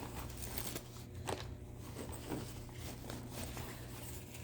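Faint rustling and scattered small clicks and knocks of hands rummaging inside a knapsack and pulling items out.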